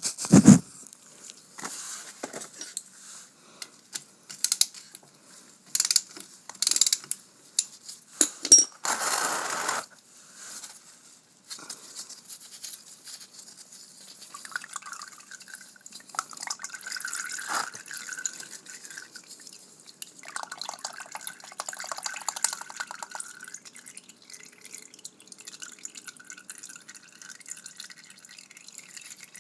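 Metal hand tool clinking against and working the 17 mm bolt of a motorcycle's oil filter housing, with oil dripping. There are several sharp clinks in the first ten seconds, then quieter, patchy working sounds with short runs of rapid ticking.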